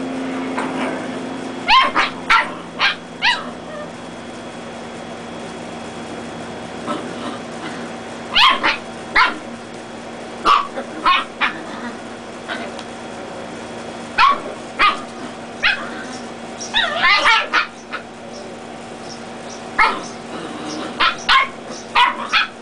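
Dachshund puppies yipping and barking while play-fighting: short, high-pitched yaps in scattered bursts of two to four, with a quick rapid flurry a little past the middle.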